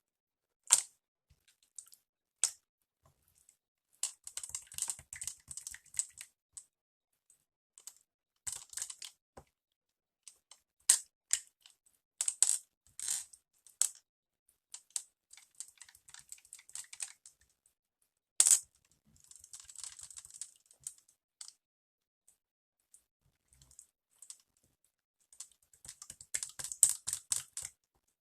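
Slime worked by hand, giving irregular sharp clicks and bursts of crackling pops, with quiet gaps between.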